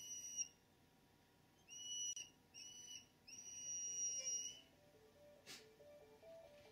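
A high, steady whistle-like tone sounded four times in notes of different lengths, the last lasting over a second.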